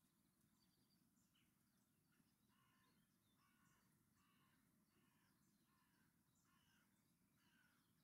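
Very faint outdoor ambience: a bird calls over and over, about three calls every two seconds, starting a couple of seconds in, over a low steady background hum.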